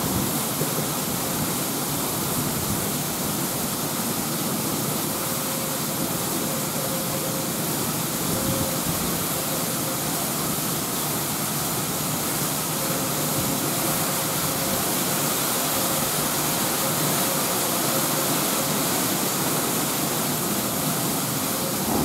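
Wheat grain pouring in a steady rushing hiss from the tailgate of a tipping grain trailer onto a concrete intake pad, with a tractor engine running beneath it.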